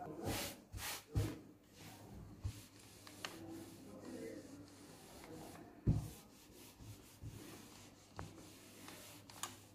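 Electric iron rubbing and sliding over a paper interfacing sheet laid on fabric, pressing it on, with rustling as a hand smooths the sheet. There are a few knocks, the loudest a thump about six seconds in.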